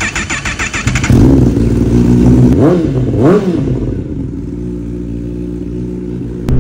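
Motorcycle engine being started: the starter cranks rapidly for about a second before the engine catches. Two quick throttle blips follow, the pitch rising and falling, and then it settles to a steady idle.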